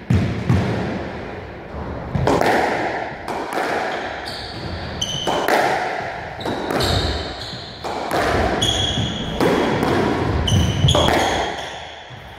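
Squash rally: the rubber ball hit by rackets and slapping off the court walls in a quick run of sharp strikes, roughly one every second. Shoes squeak briefly on the wooden court floor several times in between.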